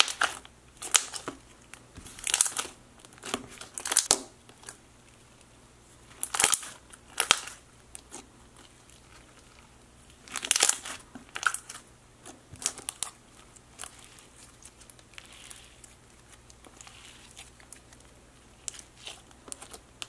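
Purple glitter floam slime full of foam beads being squeezed, poked and stretched by hand: sharp clicks and popping air bubbles with crunchy crackles, in irregular bursts. The pops come thick in the first half and turn fainter and sparser later.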